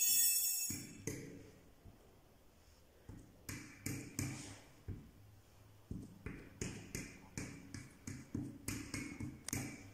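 A metal fork dabbing acrylic paint onto paper on a tabletop: a series of light taps, a few scattered and then a steady run of about two a second in the second half. A short ringing clink at the very start is the loudest sound.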